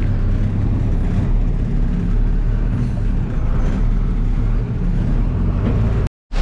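Bus engine running steadily as the bus drives, a low even drone with road noise. It drops out for a moment near the end.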